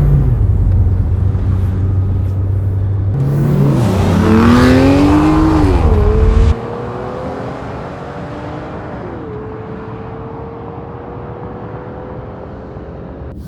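A car engine revs, its pitch rising and falling back. The deep rumble then cuts off suddenly about halfway through, leaving a quieter steady tone that rises slowly in pitch.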